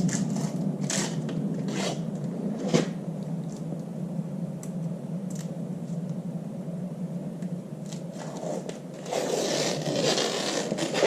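Tape being peeled off a tractor's rear axle by hand: short tearing rips about once a second at first, then a longer stretch of peeling and crinkling near the end, over a steady low hum.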